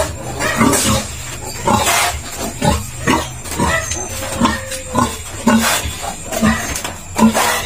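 Pigs in a farrowing pen grunting: a rapid run of short grunts, about two a second.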